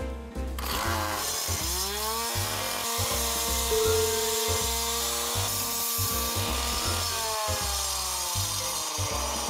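Wacker petrol cut-off saw on a wheeled cutting frame revving up about two seconds in, then running at high speed as its circular blade cuts through the road surface, its pitch sagging near the end. Music with a steady beat plays underneath.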